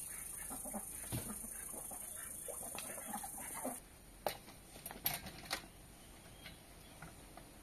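Chickens clucking over a steady high hiss that cuts off suddenly about four seconds in. A few sharp metallic clanks follow from a folding metal stepladder being handled.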